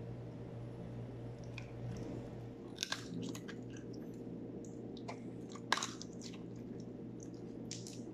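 Border collie chewing food hand-fed to it, with a few sharp crunches, the loudest about three and six seconds in.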